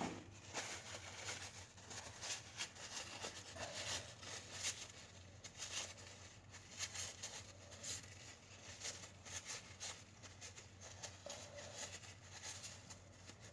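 Hands handling small carburetor parts and rebuild-kit pieces on a counter: irregular light clicks and rustling, over a steady low hum.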